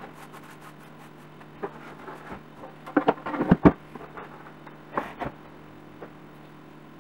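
Knocks and taps of objects being handled on a stone countertop: a quick cluster of loud knocks about three seconds in and two more about five seconds in, over a steady low hum.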